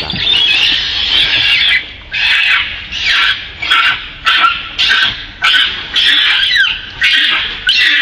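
Young southern pig-tailed macaque screaming in a tantrum: one long high-pitched shriek, then a string of shorter screams about once or twice a second, some sliding in pitch. It is upset and angry after falling from a rock.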